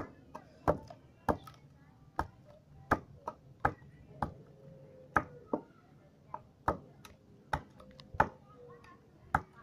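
High-speed-steel knife tip stabbed over and over into a log of water apple wood: sharp knocks, about one to two a second, unevenly spaced.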